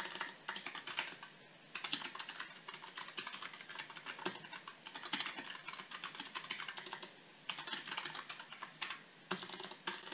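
Computer keyboard typing: rapid runs of keystrokes in bursts, with brief pauses between them.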